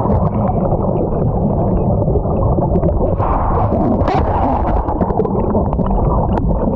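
Whitewater rapids heard from underwater: a loud, muffled rushing and gurgling of churning water with faint clicks, the high sounds of the air gone, as the microphone is submerged when the swamped canoe capsizes.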